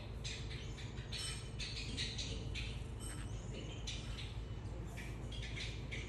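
Small pet parrotlet chattering: rapid harsh chirps and squawks in irregular bursts of a few a second. A steady low hum runs underneath.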